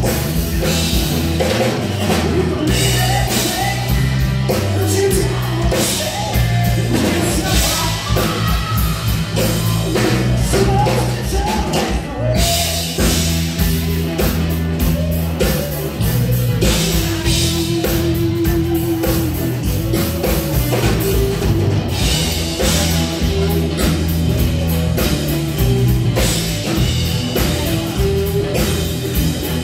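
Live rock band playing loud: electric guitar, bass guitar, keyboards and drum kit, amplified through a PA, with no words sung.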